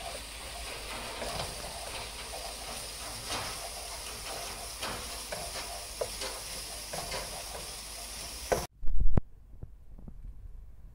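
Ground chili, garlic and shallot paste sizzling in hot oil in a nonstick wok, with a spatula scraping and tapping against the pan as it is stirred. The sizzle cuts off suddenly near the end, followed by a brief loud bump.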